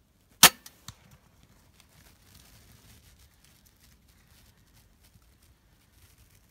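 Crossbow firing: one loud, sharp snap about half a second in, followed by two much fainter clicks.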